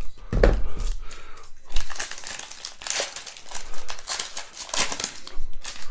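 Plastic foil wrapper of a Prizm football trading card value pack crinkling in quick irregular bursts as gloved hands crumple and tear it open.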